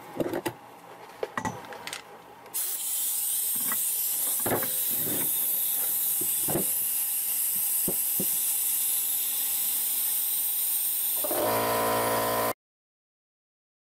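Compressed air hissing steadily from a leaking air hose, starting about two and a half seconds in, with clicks and crinkles of aluminum window screen being handled before and during it. A humming tone joins near the end, then the sound cuts to dead silence.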